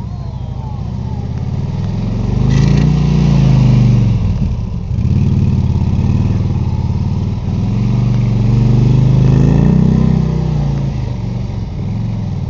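A police motorcycle's engine running through slow tight turns, its pitch rising and falling as the throttle is worked. It swells louder twice as the bike comes close by.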